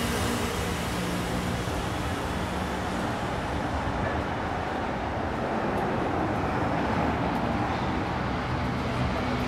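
City street traffic: a steady wash of passing cars, with a vehicle engine's low hum fading out in the first couple of seconds.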